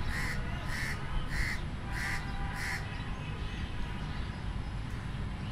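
A crow cawing five times in an even row over the first three seconds, over a steady low rumble of street ambience.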